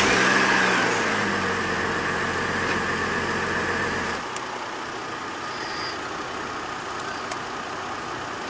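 Chevy Trailblazer's 4.2 L inline-six running just after starting, with freshly changed spark plugs. Its steady note falls away and the sound gets quieter about four seconds in.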